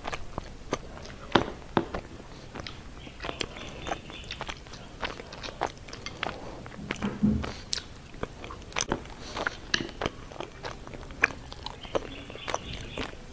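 A person eating from a bowl with chopsticks: chewing close to the microphone, with many irregular sharp clicks.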